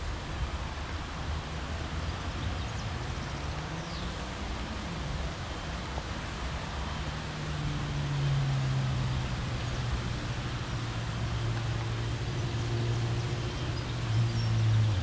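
Low hum of a motor vehicle's engine over steady outdoor background noise, growing louder about halfway through and slowly falling in pitch.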